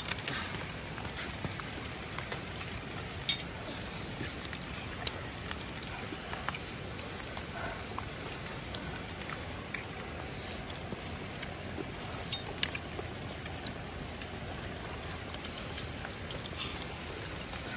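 Steady hiss with scattered small sharp clicks and taps at irregular times, a couple of them louder, from snail shells and sticks being handled at a charcoal grill.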